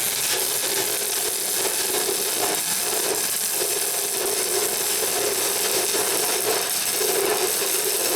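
Continuous harsh, hissing metalwork noise on a car's exhaust pipe, with a lower band in the sound that drops out briefly a few times.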